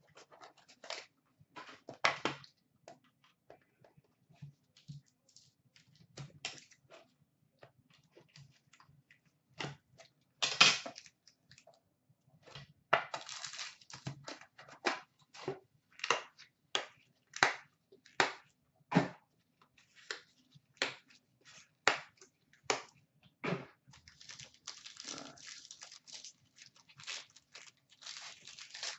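Hands unsealing and unpacking a box of trading cards: wrapper and foil pack crinkling and tearing, and cards snapping and sliding. It comes as a run of irregular sharp clicks and crackles, loudest about ten seconds in, with longer crinkling stretches around the middle and near the end.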